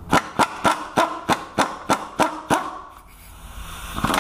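A ratchet on a long extension and swivel socket clicking about three to four times a second, each click ringing sharply, as a 15 mm starter mounting bolt is worked loose. The clicking stops about two and a half seconds in, and a brief louder scrape follows near the end.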